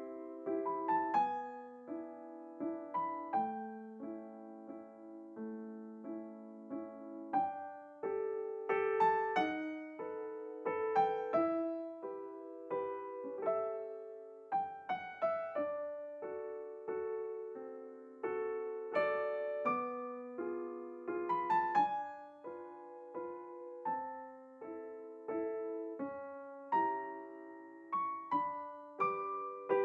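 Solo piano music playing a continuous flowing tune of separate, ringing notes.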